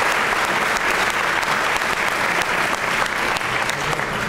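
Audience applauding steadily, many hands clapping at once with the sound filling a large hall.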